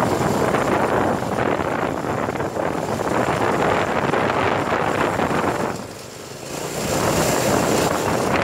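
Go-kart engine running as the kart drives along, with wind rushing over the microphone. The noise drops briefly about six seconds in, then picks back up.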